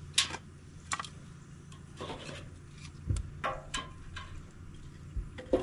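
Split firewood pieces knocking and scraping against each other and the steel rim as they are laid onto a newly lit fire in a stainless steel fire pit: irregular sharp wooden knocks with rubbing between them.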